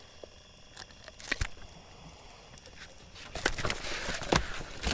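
Scattered light knocks and clicks of handling and moving about in a boat, busier in the second half.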